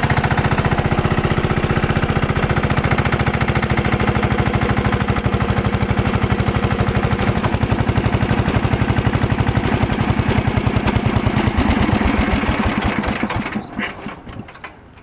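Small single-cylinder engine of an MTD 990 mud mower (a riding lawn mower) running with a rapid, even beat, then shut off and dying away in the last couple of seconds.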